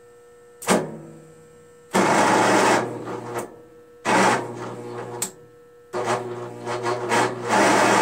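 Electric starter on a 20 hp Briggs & Stratton Intek lawn tractor engine cranking in three bursts, jumped straight from battery-charger leads with the solenoid bypassed. A sharp snap sounds as the lead touches, about half a second in; the last burst is the longest. The cranking shows that the starter motor itself works.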